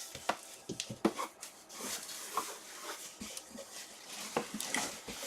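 Handling and opening a small cardboard collectible box: scattered light clicks, taps and rustling of cardboard and packaging.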